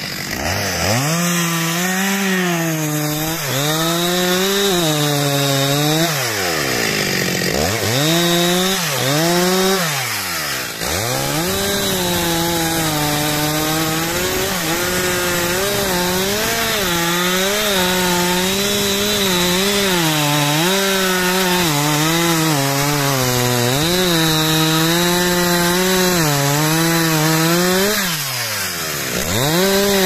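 Stihl MS 361 two-stroke chainsaw cutting wood, its engine pitch wavering as it works under load. About four times the engine speed drops sharply, then revs back up.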